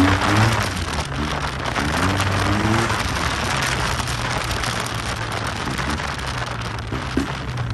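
Yamaha TMAX maxi-scooter engine running under way, with wind rushing over the microphone. The engine note rises a few times in the first three seconds as the rider opens the throttle, then holds a steady drone.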